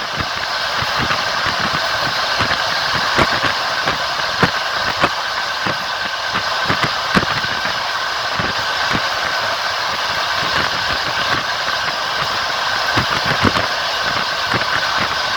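Passenger train running, heard from inside a carriage: a steady rolling rumble with irregular clicks and knocks of the wheels clattering over the rails.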